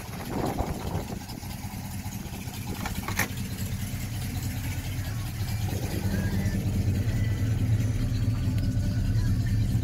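1972 Chevrolet K10 pickup's engine idling steadily, growing louder over the second half, with a single sharp click about three seconds in.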